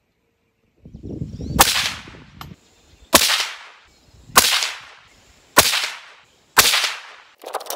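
Five shots from a 300 Blackout AR pistol with a 7.5-inch barrel, fired in steady succession a little over a second apart, each a sharp, loud crack that dies away quickly. Near the end a dense crackling noise begins.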